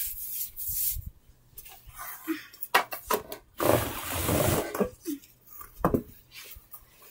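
Handling noise: hands moving toys and a wooden toy bow over a carpet, scattered rustles and light knocks, loudest about four seconds in as a hand brushes close to the microphone.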